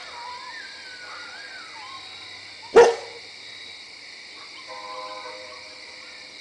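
A pack of coyotes howling and yipping, their wavering calls gliding up and down, with one sharp, loud knock a little before halfway through.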